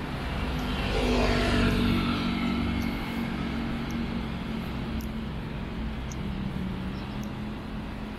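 A motor vehicle passing close by, loudest a second or two in, its pitch falling as it goes past, over a steady hum of city traffic.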